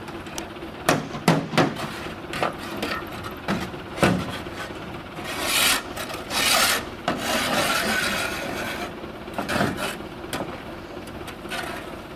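Scraping and knocking of a shovel against a tipped tractor dump trailer: a few sharp knocks, then longer scrapes around the middle, over a faint steady low hum.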